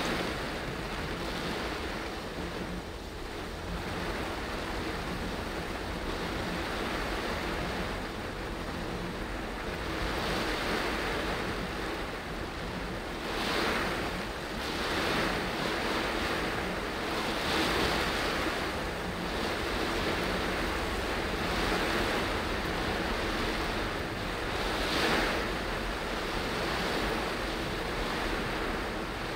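Heavy rain on a moving car and tyres hissing on the wet road, heard from inside the cabin: a steady rushing that swells several times.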